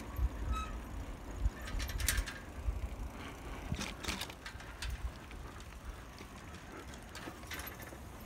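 Bicycle rolling along a paved path and over grass, with scattered clicks and rattles from the bike, over an irregular low rumble from the handheld camera being carried along.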